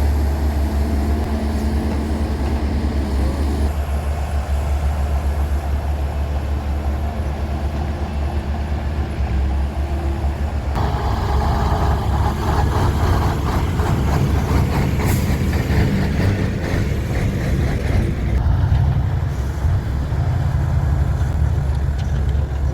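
Heavy diesel machinery running steadily with a deep hum while a wheeled excavator loads mud into a dump truck. About halfway through, dense rattling and clattering joins in, with one sharp click a few seconds later.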